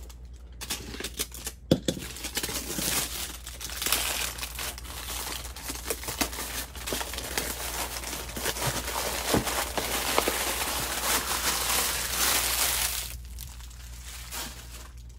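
Clear plastic shrink wrap being cut with a box cutter and pulled off a stack of cardboard boxes, crinkling and tearing with scattered sharp clicks. It stops about two seconds before the end.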